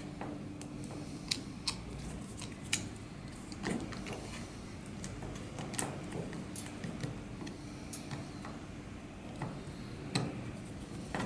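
Irregular small clicks and taps of hand tools and wire being handled at an electric fan's terminal box as a wire link is fitted between the terminals, over a faint steady hum.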